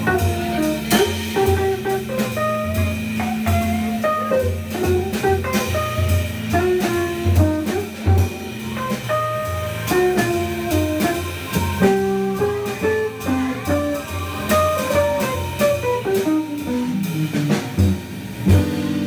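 Jazz organ trio playing live: a hollow-body electric guitar plays quick single-note lines over organ and drum kit with steady cymbals. Near the end the line runs downward before the music carries on.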